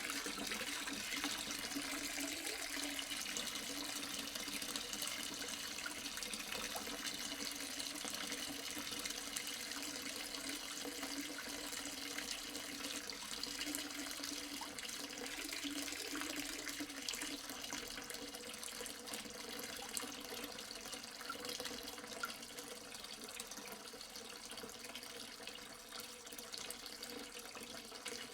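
Water pouring steadily into a half-full sink, splashing into the standing water, easing slightly in level over the second half.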